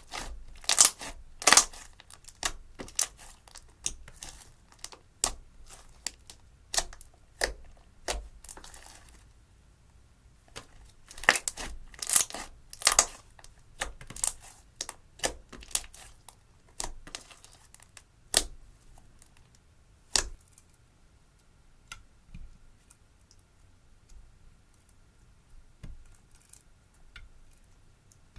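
Slime being stretched and worked by hand, giving sharp sticky crackles and pops. They come thickly through the first half, pause briefly in the middle, and grow sparse toward the end.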